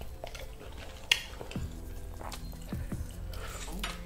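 Close-miked mouth sounds of eating fried chicken: wet smacking and sucking at the meat, with one sharp click about a second in.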